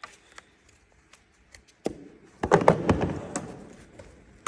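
Hand tools, likely sockets, being handled and put away: a few light metal clicks, a sharp knock, then a burst of knocks and clatter a little past halfway.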